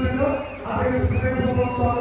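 A group of men singing an Onamkali song in chorus, in long held phrases, as they dance in a circle.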